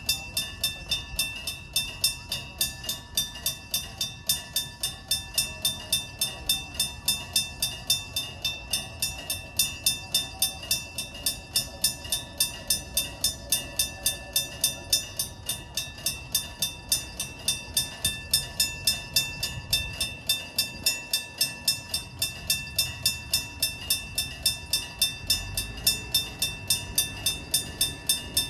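Japanese railroad crossing warning bell starting suddenly and ringing steadily at about two strikes a second, over the low rumble of a train.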